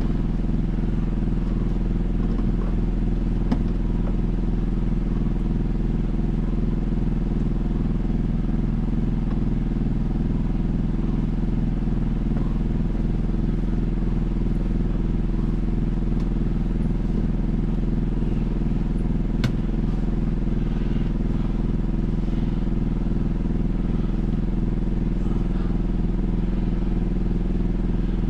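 A motor running steadily, a constant low hum with a faint click or two.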